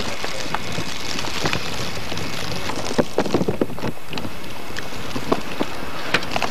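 Steady rush of wind on the camcorder microphone, with a quick cluster of knocks about three seconds in and a few single clicks later.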